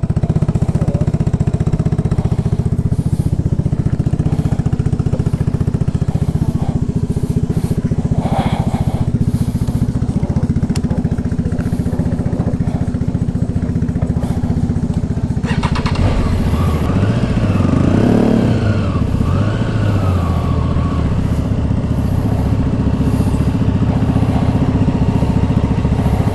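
Motorcycle engine running steadily while riding, with a stretch about sixteen seconds in where the pitch rises and falls a few times.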